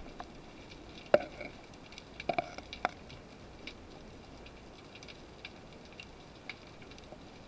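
Underwater ambience through a camera housing: a low hiss with scattered sharp clicks and crackles, a cluster of louder clicks between about one and three seconds in.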